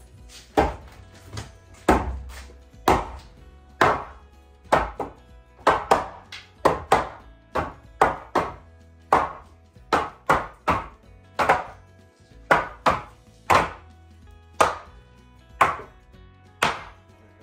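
A hammer knocking a slightly overlength wooden upright into place, with about two dozen sharp blows at an uneven pace of one to two a second, driving the post up tight under an old rafter. Faint music runs underneath.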